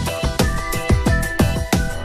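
Background music: an electronic track with a fast, steady drum beat and held synth notes.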